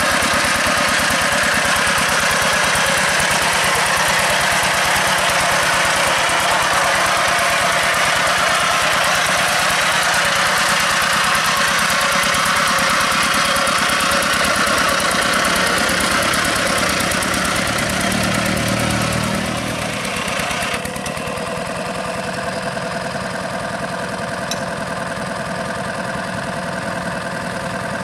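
Two-wheel hand tractor's single-cylinder diesel engine running steadily under load while it works a flooded rice paddy, with a fast, even chugging. The sound drops and turns quieter about two-thirds of the way through.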